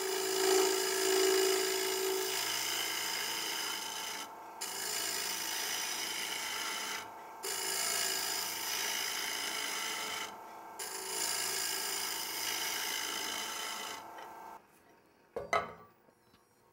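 Carbide-tipped finishing tool scraping the inside of a spinning kiln-dried cherry turning on a wood lathe: a steady, hissing cut in several passes, with short pauses about four, seven and ten seconds in. The cutting stops near the end, and a single knock follows.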